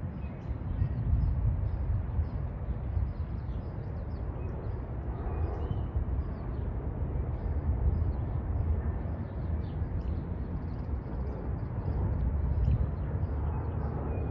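Steady low rumble of a Joyor F7 electric scooter rolling along a paved path in its slowest mode, 5–7 mph. Birds chirp faintly and often above it.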